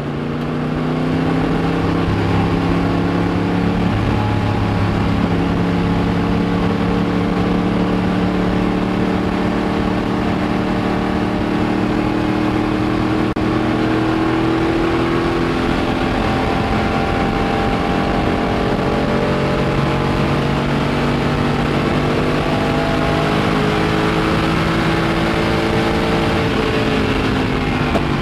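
Racing car's V8 engine with individual intake stacks, heard from inside the open cockpit at speed on track. Its pitch holds steady for long stretches and rises and falls slowly as the driver works the throttle and gears, over a haze of wind and road noise.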